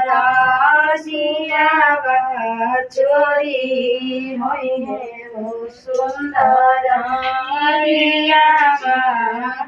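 Women singing a folk song without instruments, long held notes in phrases with short breaths between them.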